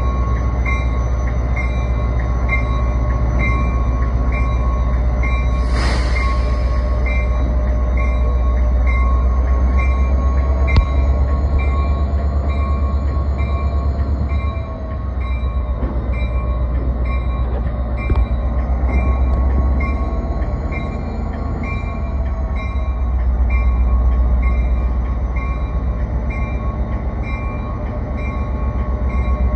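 Amtrak F40PH diesel locomotive's EMD 645 two-stroke V16 engine running steadily as the locomotive creeps along the track, its bell ringing in a steady, even rhythm. A short hiss of air comes about six seconds in and again at the end.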